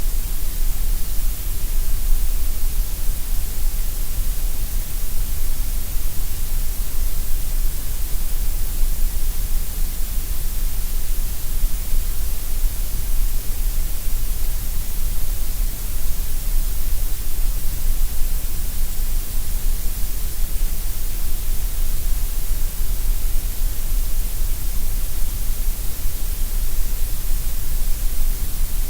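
Synthetic grey noise: a steady, unchanging hiss with a deep rumble beneath, strongest in the deep bass and the highest treble and weakest in the middle.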